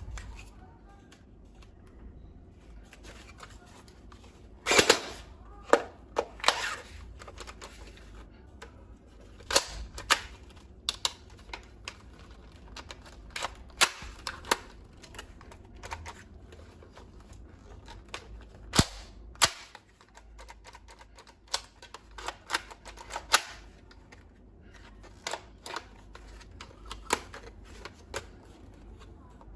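Toy gun mechanisms clicking and snapping as they are handled and worked: irregular sharp clicks, with several louder snaps scattered throughout.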